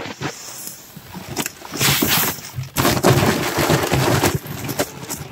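Brown rice poured from a paper sack onto the steel wire grate of a rice-polishing machine's hopper: a dense rattling hiss of grains hitting metal, which swells about two seconds in and eases off near the end, with the paper sack rustling.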